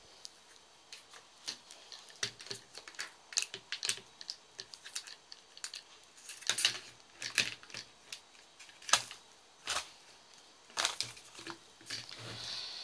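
Clear plastic bag of Epsom salt crystals crinkling and crackling in irregular clicks as salt is spooned out and tipped into a plastic spray bottle, with a short hiss near the end.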